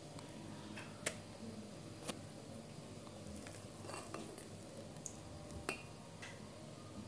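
Silicone spatula stirring whipped fresh cream in a stainless steel bowl: faint scraping with a few light clicks of the spatula against the bowl.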